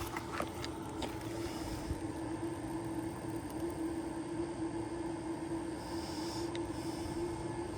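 A steady mechanical hum with a held tone, with a few small clicks in the first second.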